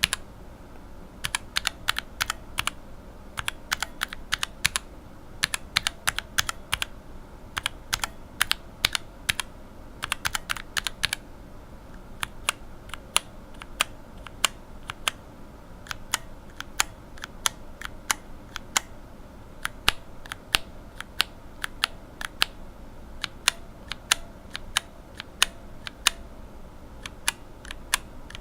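Unlubed linear mechanical keyboard switches (Cherry bottom housings, Revo White stems and springs) being pressed and released one key at a time, each stroke a sharp clack. The keystrokes come in quick runs for the first several seconds, then slow to about one press a second.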